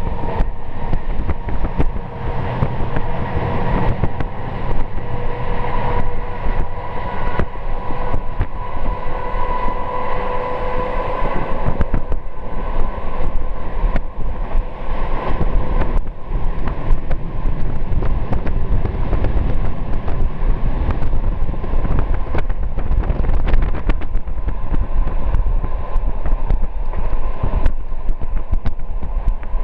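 Train running at speed, heard from inside a carriage: a steady rumble of wheels on the rails with wind noise. A steady high whine runs through the first dozen seconds, then fades away.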